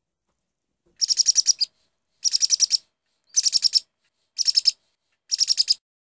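Bird chirping: five quick bursts of rapid, high chirps, each about half a second long and about a second apart.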